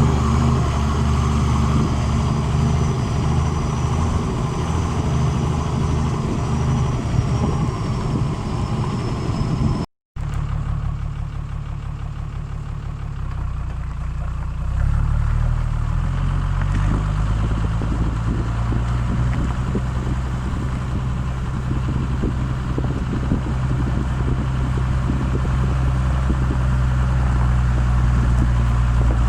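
Exhaust of a 1987 Toyota Land Cruiser HJ61's 12H-T turbodiesel inline-six running, in two takes split by a brief cut about ten seconds in. In the first take a high whistle slides slowly down. In the second the low engine note steps up in pitch around fifteen seconds in, then holds steady.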